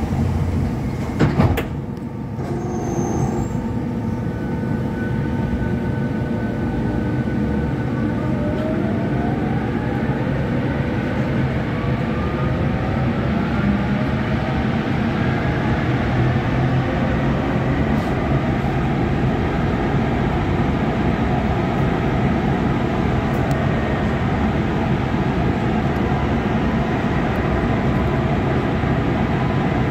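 Lille VAL rubber-tyred automatic metro train pulling away in a tunnel: a loud knock about a second and a half in, then the traction motors' whine rising in pitch as the train gathers speed, settling into a steady running rumble.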